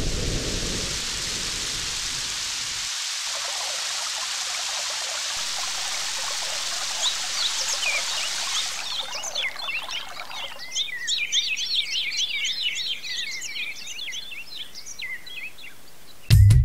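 Steady rain hiss that fades out about nine seconds in, overlapped and then followed by many quick, high bird chirps and tweets. Music with drums cuts in right at the end.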